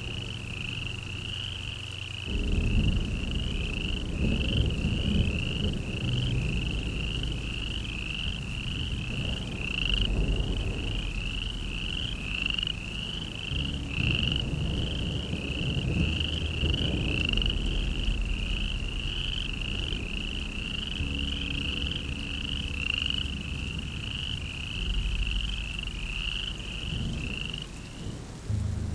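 A frog calling steadily: short, high, rising peeps repeated about one and a half times a second, over a low drone that shifts every few seconds.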